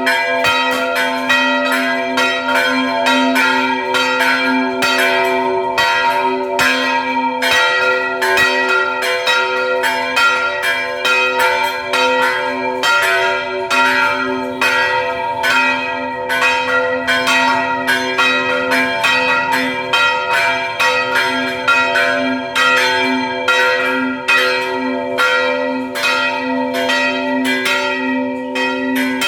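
Two old French-cast church bells rung by pulled ropes, struck continuously at about two strokes a second, their tones ringing on and overlapping.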